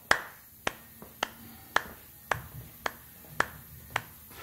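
Sharp ticks at a perfectly even beat, a little under two a second, like a clock or metronome tick.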